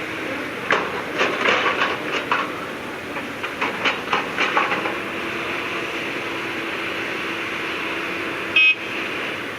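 Heavy earthmoving machinery running steadily, with a quick series of sharp metallic clanks and knocks over the first half. Near the end comes one short horn toot.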